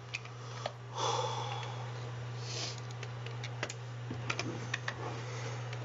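Scattered clicks of a computer keyboard and mouse as a PowerPoint slide is edited, over a steady low hum of room tone, with a short hiss about two and a half seconds in.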